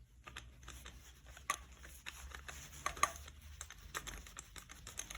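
Scattered light clicks and handling noise as a 15 mm nut held in a socket is threaded by hand onto the bottom bolt of a fork's lower leg.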